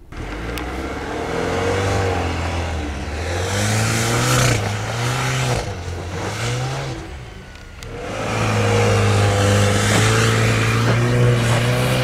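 Renault Arkana's 1.3-litre turbo petrol engine revving hard under load on a steep sandy climb. The revs rise and fall several times, sag briefly past the middle, then hold high near the end, with a rushing noise and a few sharp knocks over it.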